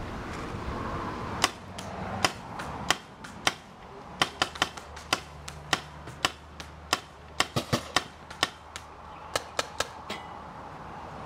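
Paintball markers firing: some two dozen sharp pops, single shots and quick strings of two to four. They begin about a second and a half in and stop about ten seconds in.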